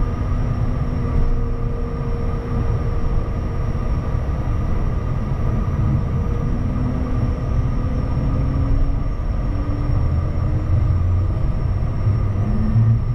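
Bombardier Challenger 350's twin Honeywell HTF7350 turbofans running at taxi power, heard from inside the cockpit as the jet taxis onto the runway: a steady low rumble with a constant high whine.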